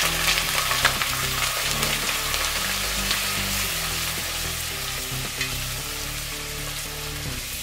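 Beef chunks sizzling in hot oil in a pot as they are stirred with a spatula. The sizzle is loudest at first and eases off.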